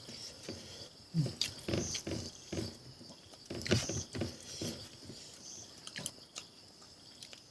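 Close-miked mukbang eating sounds: a person chewing, with irregular short smacks and clicks of food being bitten and worked in the mouth.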